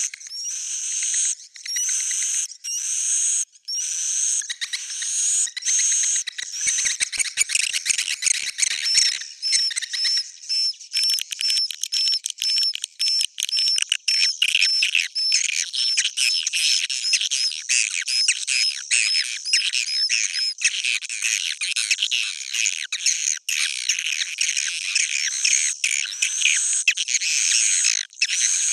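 Swiftlet calls: a dense, continuous high twittering of chirps, with a fast run of clicks about seven to nine seconds in and then rows of quick repeated chirps.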